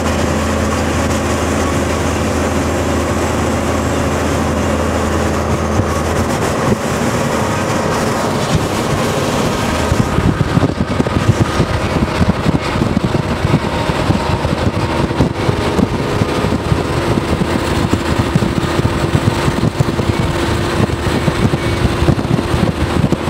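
Inside a car driving at speed alongside a moving freight train: a steady road and engine drone. About ten seconds in it gives way to heavy, choppy wind buffeting on the microphone, with the train's rumble mixed underneath.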